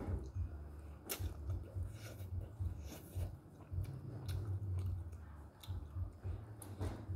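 A person chewing a mouthful of instant noodles close to the microphone, with wet mouth sounds and a scatter of short sharp clicks, the sharpest about a second in and another near the end.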